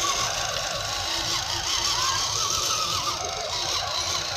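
Electric motor and gears of a 1/10-scale RC rock crawler whining, the pitch wavering up and down as the throttle and load change.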